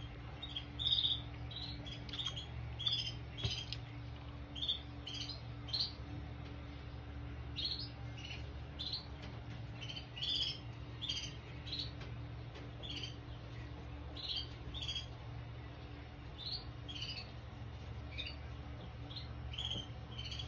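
Young canaries chirping: short high calls, singly and in quick clusters, scattered irregularly, over a steady low hum.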